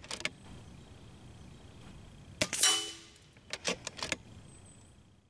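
A single shot from an FX Impact M3 PCP air rifle about two and a half seconds in: a sharp crack followed at once by a brief metallic ring. A few mechanical clicks come at the start and again about a second after the shot, as the rifle is cycled for the next pellet.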